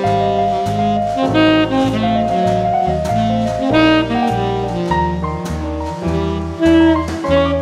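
Background jazz music: a saxophone melody over a bass line and drums, with the bass notes changing about twice a second.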